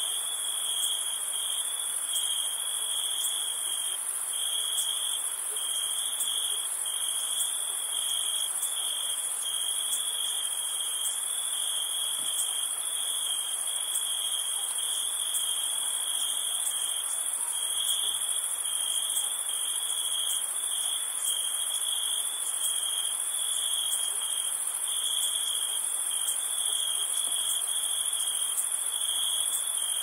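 Summer-night insect chorus: a steady, high cricket trill with a shriller insect buzz pulsing at an even pace above it, over a soft wash of gently moving water.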